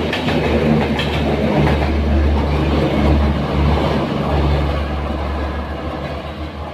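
Express passenger train rolling past, its wheels clicking over the rail joints in the first second or so over a steady low rumble that eases off near the end.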